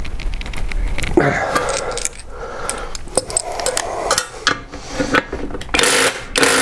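Metal clinking and scraping of a wrench being worked on a steel nut. Near the end come two short, loud bursts of an impact wrench hammering the overtightened nut loose.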